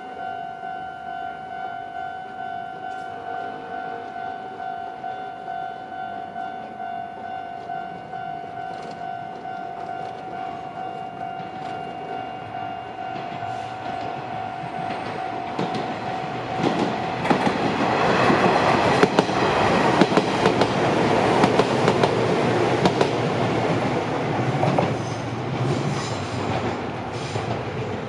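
A Japanese level-crossing alarm dings over and over in a steady pulse. About halfway through, an electric train passes over the crossing, its wheels clattering over the rail joints and drowning out the bell, then dying away near the end.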